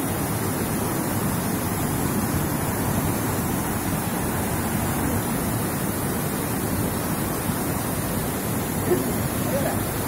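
Steady rush of falling water from a large waterfall, an even noise with no breaks.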